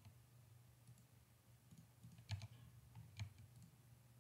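Faint clicks of a computer keyboard and mouse as Blender is driven by shortcut keys: a few sharp keystrokes, the loudest about two and a third and three and a quarter seconds in, over a low steady hum.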